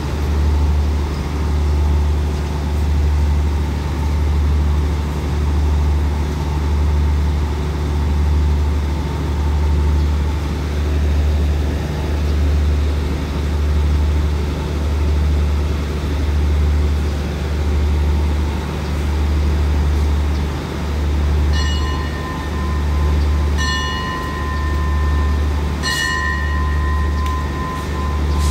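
A standing diesel passenger train's engine idling: a deep, steady drone that swells and fades about once a second. Near the end a couple of short high tones sound, then a longer one.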